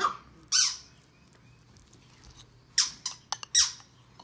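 A squeaky dog toy being squeezed: short, high squeaks that fall in pitch, two in the first second, then three close together about three seconds in.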